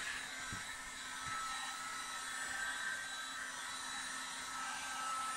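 Handheld electric heat gun running, a steady whir of fan and rushing air with a faint whine. It is blowing hot air onto a plastic trailer canopy to soften a dent pressed in by snow.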